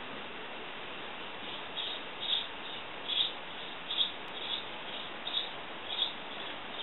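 House sparrow chirping, a run of short chirps roughly twice a second that starts about a second and a half in, over a steady background hiss.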